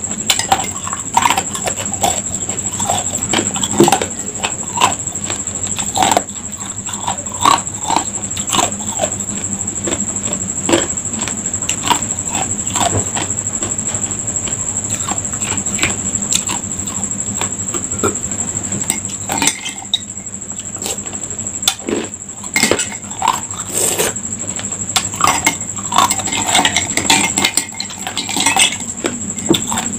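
Ice cubes being crunched and chewed close to the microphone, with a metal spoon clinking and scraping against a glass mug as ice is scooped out. A steady high-pitched whine runs underneath.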